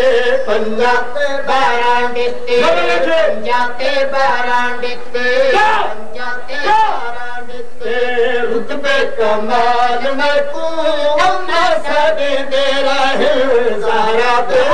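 A man's voice chanting a devotional Saraiki qasida, loud and continuous, with long wavering held notes.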